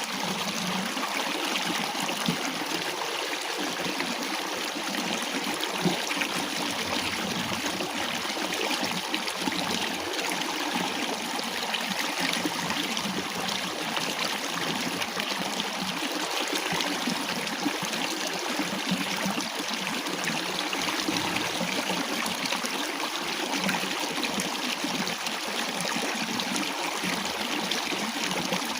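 Water running steadily in a small stream, trickling and gurgling without a break.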